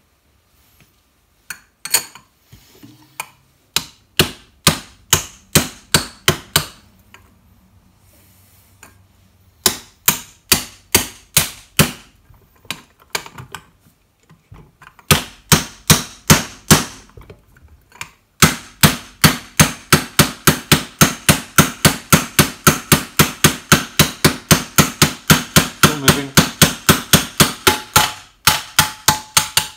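Hammer blows on a brass tube used as a drift, driving a tight-fitting ball bearing race onto a Boxford lathe's headstock spindle. The strikes come in short runs of about one and a half a second with pauses between, then in a long, faster run of about three a second through the second half.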